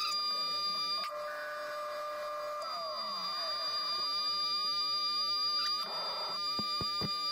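1941 Bridgeport J-head milling machine running with a steady whine while it drills into the end of a square bar. A tone falls in pitch about three seconds in, and a few sharp clicks come near the end as the drill is raised clear of the work.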